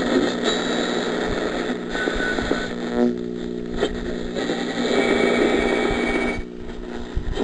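AM static and interference from a 1948 Crosley tube radio's loudspeaker while it is tuned across the band, with a steady hum underneath and short whistles and snatches of faint distant stations coming and going.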